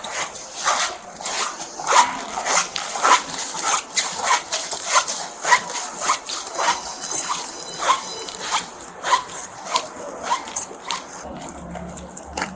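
Footsteps at a walking pace, about two a second, with the rustle and clack of a police officer's body-worn camera and duty gear knocking as he walks.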